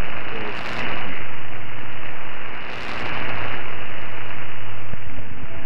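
Shortwave AM radio reception of the Voice of Turkey on 5960 kHz, heard as a loud, steady static hiss with a low hum, in the silent gap after the news bulletin ends.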